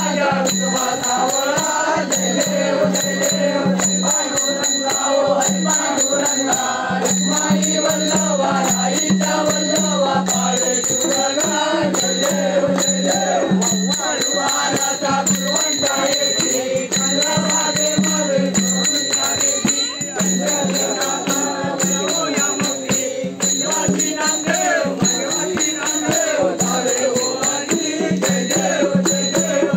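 A group singing a Ganpati devotional song, a bhajan or aarti, to constant rattling percussion, with a low held note that comes and goes.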